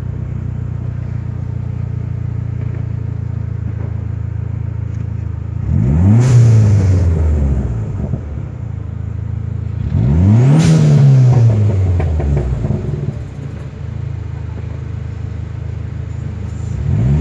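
Dodge SRT-4's turbocharged 2.4-litre four-cylinder engine idling steadily, then revved twice, about six and ten seconds in, each rev climbing and falling back within about two seconds; a third rev begins right at the end.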